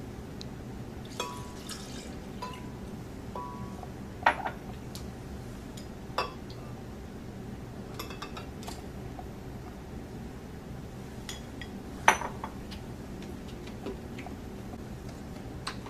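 Milk and ice cream being added to a 40 oz glass blender jar: liquid pouring, then scooping, with several sharp clinks of utensils and containers against the glass, the loudest about four and twelve seconds in. A steady low hum runs underneath.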